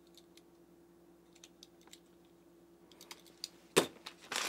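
Light scattered clicks of small plastic accessories and their bag being handled, then a sharp knock just before four seconds in as a part is set down on the table, and a plastic bag starting to crinkle near the end. A faint steady hum lies under it all.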